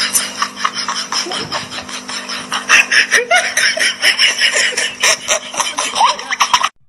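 People laughing hard in a rapid run of laughs over a steady low hum. The sound cuts off shortly before the end.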